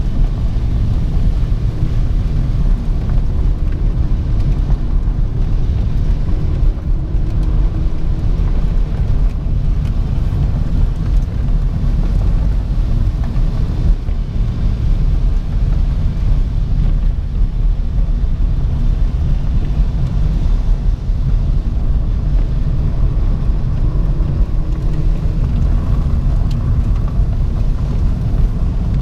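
Car driving on a wet road, heard from inside the cabin: a steady low rumble of engine and tyre noise.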